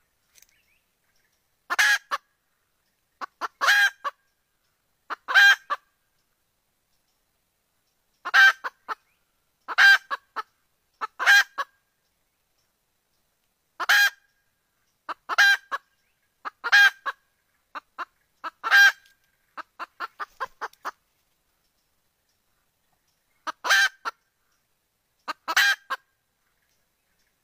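Red junglefowl hen calling for a rooster: short, loud clucking calls, singly or in quick pairs, coming in groups with pauses of a few seconds between. About two-thirds of the way through there is a run of softer, quicker clucks.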